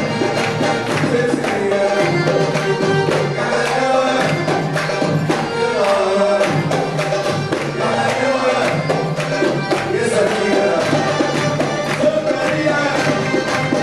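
Live Middle Eastern belly-dance music: a steady hand-drum rhythm on darbuka, with accordion and keyboard playing the melody.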